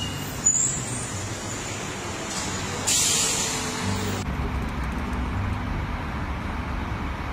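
Steady rumble and hiss inside an airliner cabin just after landing, as the plane rolls on the runway. The sound shifts abruptly about four seconds in.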